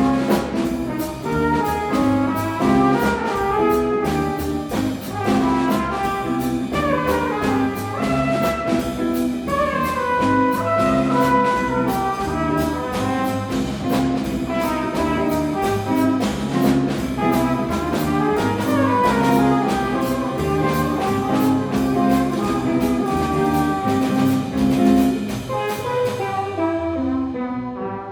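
Small jazz combo playing: melody lines over bass and drums, with steady cymbal strokes. About two seconds before the end, the cymbals stop while held notes carry on.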